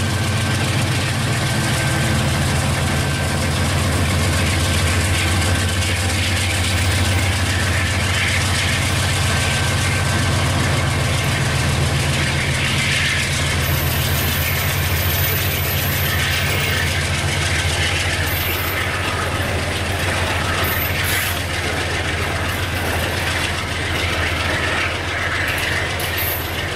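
Diesel freight locomotive running as it passes, a steady low engine drone, with rolling freight wagons adding clicks and rattles that grow over the last several seconds as the engine drone eases.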